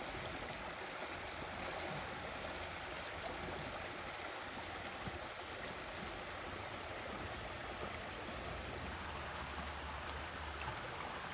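Shallow rocky creek running over and around stones: a steady, even rush of flowing water.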